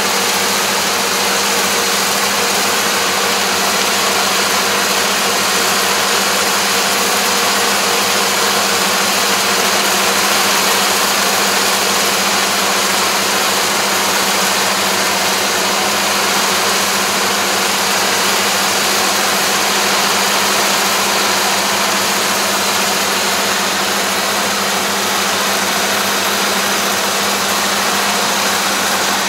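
Combine harvester running steadily in the grain: a constant engine and machinery drone with a steady hum, unchanging throughout.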